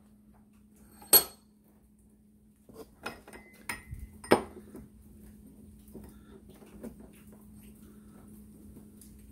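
Metal clanks and clinks as a steel handlebar spindle and tools are handled in a bench vise: one sharp clank about a second in, then a cluster of lighter clinks with a louder knock around four seconds. A faint steady hum runs underneath.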